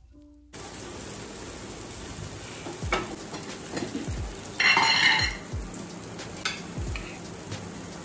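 Vegetables sautéing in a pan, a steady sizzle with the scrape and knock of a spatula stirring against the pan a few times, and one louder burst about halfway through.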